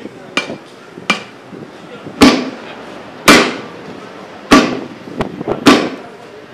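Hammer blows on metal: two lighter taps, then four heavy strikes about a second apart, each with a brief metallic ring.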